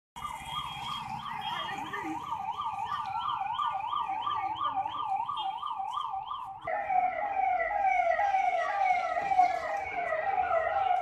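Fire engine siren sounding in a fast up-and-down warble, which switches about two-thirds of the way through to a slower pattern of repeated falling sweeps.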